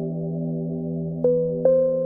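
Ambient synthesizer music: a soft sustained chord, with two bell-like notes struck about a second in and shortly after, each ringing on.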